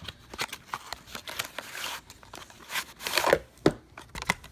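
Selfie stick packaging being opened by hand: irregular tearing, crinkling and sharp clicks of the box and wrapping being pulled apart, loudest about three seconds in.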